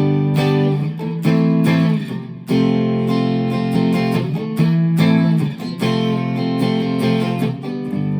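Chapman ML1 Modern Standard electric guitar, played stock straight out of the box: strummed and picked chords that change about every second, with the last chord left ringing near the end.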